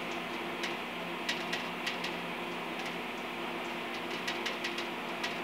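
A steady low hum with scattered, irregular sharp ticks over it, about a dozen in all.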